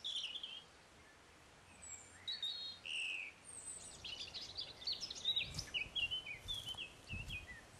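Woodland birdsong: several birds singing short whistled chirps and phrases, thickening into a busy run of quick notes about halfway through.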